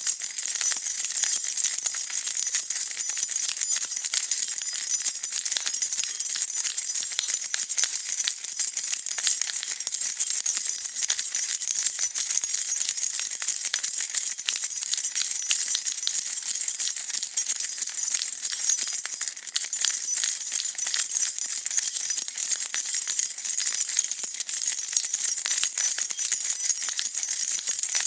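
A bunch of metal keys jingling continuously as they are shaken: a steady, dense stream of small bright clinks.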